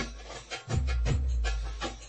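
Background music with a steady drum beat and a heavy bass note repeating in a regular rhythm.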